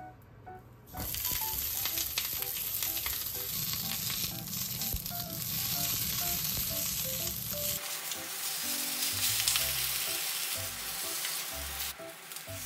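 Green peppers sizzling as they fry in a square nonstick pan on an induction hob, stirred with chopsticks. The sizzling starts about a second in and eases near the end.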